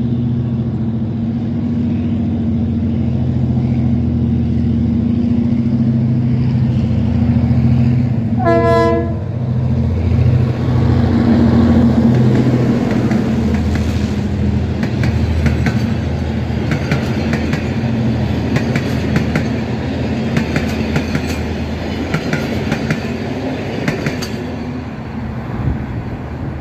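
A locomotive-hauled passenger train approaching and passing close by. The locomotive's engine drones steadily and gives one short horn blast about nine seconds in. Then the coaches' wheels clatter rapidly over the rail joints as they roll past, thinning out near the end.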